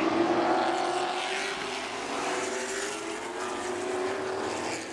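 A pack of Super Late Model stock cars racing by, their V8 engines running together in an overlapping drone. It is loudest near the start and fades somewhat as the field moves away down the straight.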